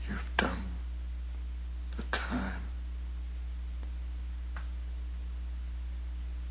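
Steady low hum with faint hiss, with two brief vocal sounds from a man, one right at the start and one about two seconds in.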